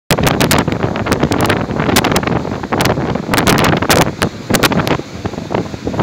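Gale-force storm wind buffeting the microphone in loud, irregular gusts, over the low rush of heavy storm surf breaking against rocks.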